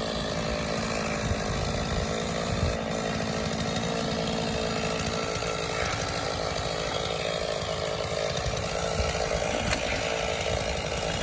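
Stihl MS460 two-stroke chainsaw running steadily under load, cutting through elm wood.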